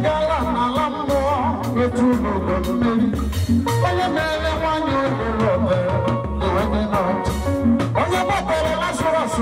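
Live gospel praise music: a band with drum kit and bass plays a steady beat while a man sings into a microphone.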